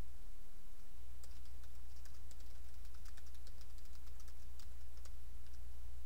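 Typing on a computer keyboard: a run of quick, irregular keystroke clicks as a web address is entered. A steady low hum sits underneath.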